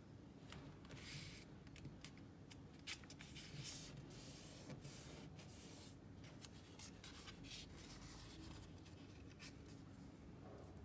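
Faint rustling and crinkling of origami paper being folded and pressed flat by fingers, in a series of short strokes with a sharp crackle about three seconds in.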